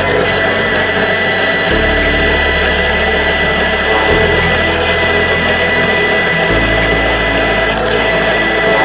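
A power tool running steadily with an even high whine, over background music.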